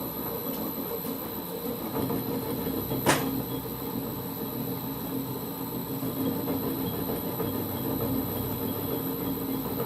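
Holbrook C8 toolroom lathe running steadily with a hand-ground parting-off tool in the cut, a constant hum with a faint high whine. One sharp click about three seconds in.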